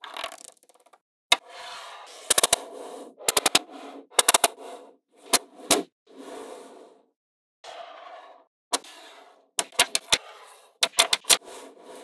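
Small magnetic balls clicking sharply as they snap together, mostly in quick runs of two to four clicks, with softer scraping between as the strips of balls are slid and pressed into place on a tabletop.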